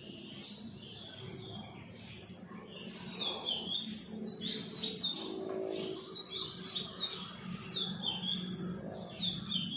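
Small birds chirping, a stream of short, quick high chirps that grows busier and louder from about three seconds in.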